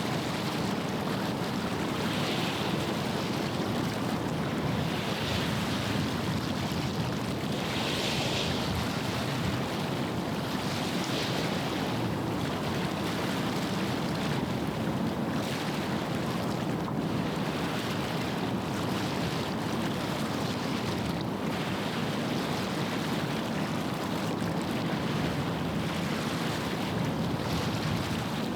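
Waves washing on the shore and wind on the microphone over a low, steady rumble. Through the first dozen seconds or so, hissing swells of wash come about every three seconds.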